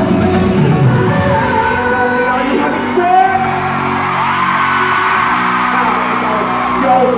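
A K-pop boy group singing live over a pop backing track in a large arena, with the crowd whooping and cheering along.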